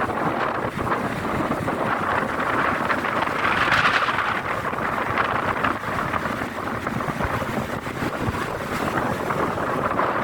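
Strong wind buffeting the microphone over rough sea water, a steady rush that swells loudest about four seconds in.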